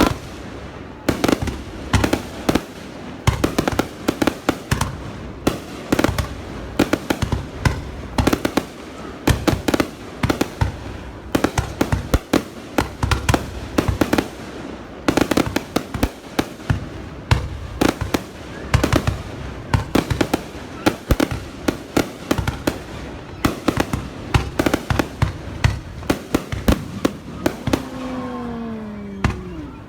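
Fireworks going off in a dense, irregular string of sharp bangs, several a second, without a break.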